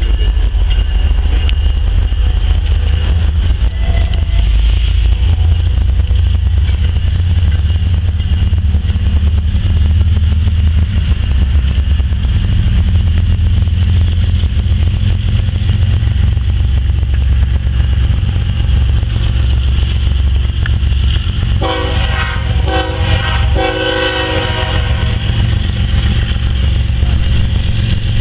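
Kansas City Southern diesel freight locomotives approaching with a steady low rumble. About three-quarters of the way through, the air horn sounds three short blasts in quick succession.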